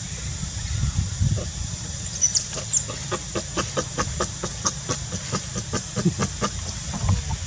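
Baby macaque giving two short, high, falling squeaks about two seconds in, then a run of short sharp calls or clicks at about three a second, over a steady hiss.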